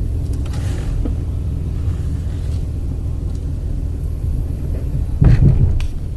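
Pickup truck running with a steady low rumble, swelling louder briefly about five seconds in.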